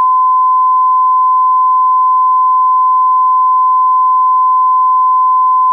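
Electronic line-up test tone: one steady, unwavering high beep at a constant loud level, held for almost six seconds and then cut off abruptly.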